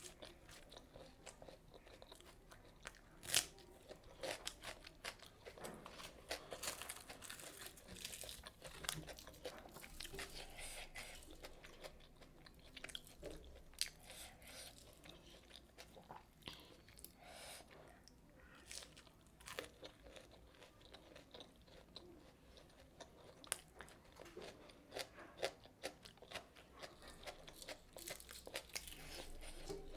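Close-miked chewing and biting of crunchy food, an irregular run of crisp crackles and mouth sounds, with one sharper crunch about three seconds in.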